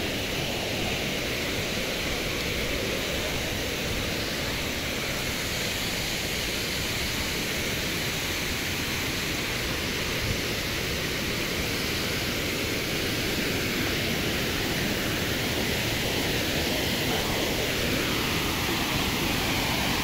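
Waterfall with a drop of about three to four metres, its falling water making a steady, even rush.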